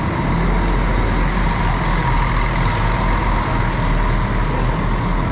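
Double-decker coach's diesel engine running with a steady low rumble as the coach pulls out and drives away.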